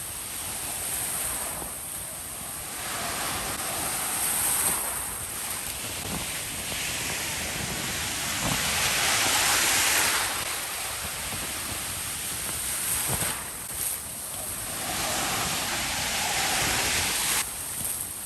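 Ocean waves washing onto a beach, with wind buffeting the phone's microphone; the rush swells and falls several times and is loudest about halfway through.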